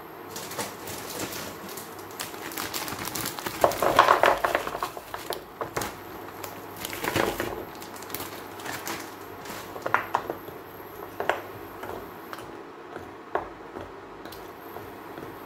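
Raw floured meatballs frying in butter in a nonstick frying pan: irregular bursts of sizzling and crackling a few seconds apart over a steady hiss, the loudest about four seconds in.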